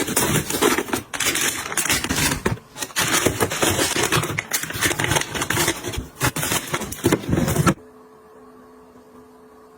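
Close-up handling noise of household items: dense crackling, clicking and clattering, which stops abruptly about eight seconds in, leaving a faint steady hum.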